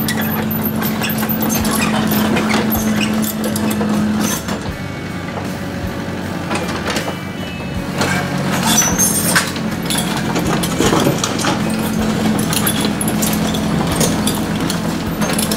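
Mini excavator engine running steadily, with repeated clanks and knocks from its tracks and bucket as it scrapes and levels the ground.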